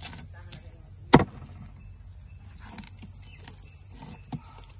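A large curved knife chopping through a fish onto a wooden block, one sharp chop about a second in, with lighter scraping taps around it. Steady high insect chirring runs underneath.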